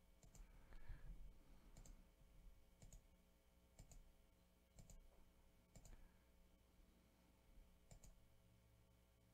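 Faint computer mouse clicks, roughly one a second, several coming as quick pairs, over a faint low steady hum.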